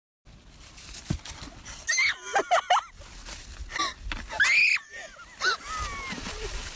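A person laughing in high-pitched shrieks and wheezes, in short bursts that come and go.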